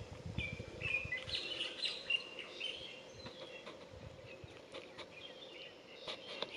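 Bird chirps and short whistled calls, many in the first three seconds and sparser after, with a few low thumps in the first second or so.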